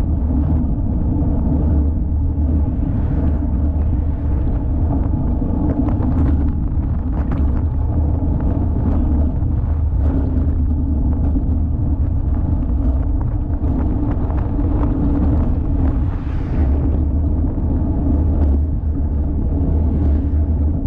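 Steady low rumble of a road bicycle rolling over pavement, picked up through a camera mounted on the bike, with a few faint ticks over it.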